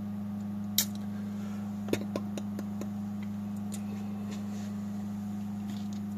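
Steady low hum of a running desktop PC and its cooling fan, with a scatter of light clicks and taps about a second in and a quick cluster of them around two to three seconds in.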